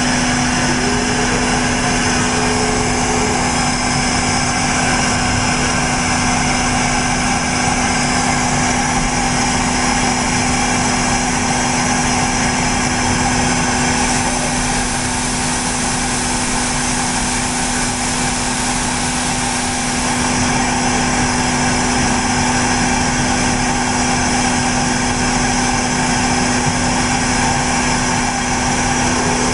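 Giddings and Lewis ram-type vertical borer running steadily, a constant hum over a continuous machine whir with no change in speed.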